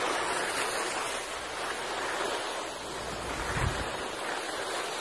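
Steady hiss of skis sliding and scraping over packed snow, mixed with wind rushing on the microphone, with a brief low wind buffet about three and a half seconds in.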